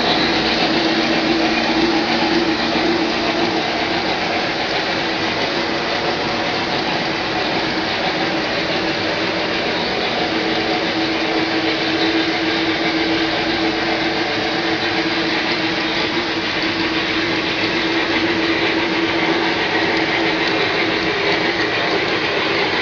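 O-gauge three-rail model freight trains rolling steadily past on the layout's track. Their wheels and motors make a continuous hum and rattle.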